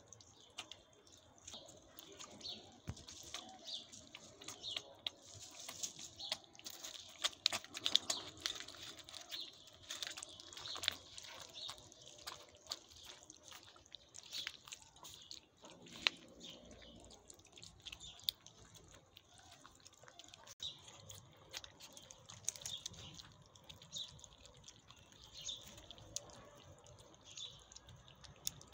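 A litter of kittens eating wet meat and broth from plastic plates: faint wet chewing, lapping and smacking, with many small irregular clicks.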